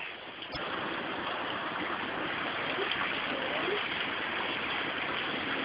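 Steady hiss of heavy rain falling during a thunderstorm, a little louder after a click about half a second in.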